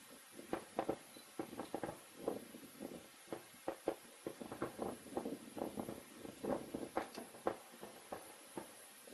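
Aerial fireworks crackling: a dense, irregular run of sharp pops and snaps, with no deep booms.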